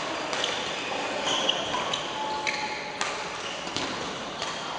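Badminton rackets striking a shuttlecock several times during a rally, sharp cracks spaced about a second apart, with short sneaker squeaks on the court floor, echoing in a large hall.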